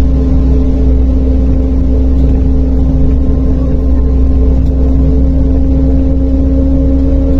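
MAZ-105.065 articulated city bus heard from inside the passenger cabin while driving: a steady low rumble of the diesel engine and road noise, with a constant hum of several held tones.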